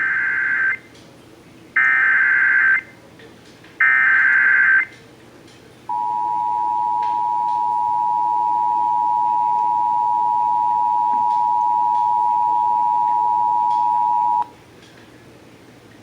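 Emergency Alert System activation tones: three short bursts of SAME digital header data, each about a second long and two seconds apart, then the steady two-tone EAS attention signal (853 and 960 Hz) held for about eight and a half seconds before it cuts off. The tones announce an emergency alert about to be read.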